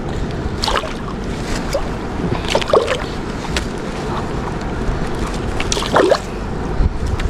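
Steady wind noise buffeting the microphone outdoors, with a few short, sharp sounds about a second, three seconds and six seconds in.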